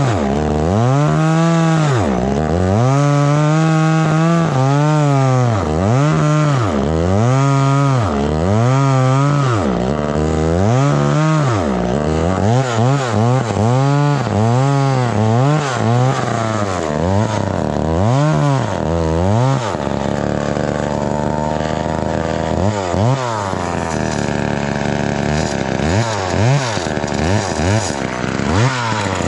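1970s Jonsered two-stroke chainsaw cutting a stump down flush with the ground, its engine revving up and falling back about once a second. For the last third it holds a lower, steadier note.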